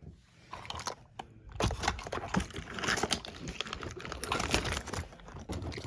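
Small plastic fidget toys clicking and rustling against each other as hands rummage through a bucket of them.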